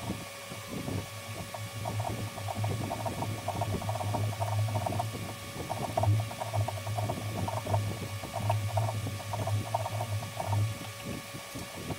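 Hand tap being turned with a tap wrench into a copper workpiece held in a lathe chuck: irregular grating strokes of the tap cutting, starting about a second in and stopping shortly before the end, over a steady faint hum.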